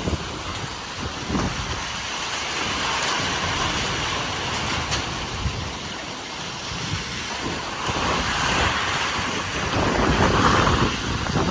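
Strong thunderstorm wind gusting hard and buffeting the microphone, swelling into a louder gust about eight seconds in and peaking near the end.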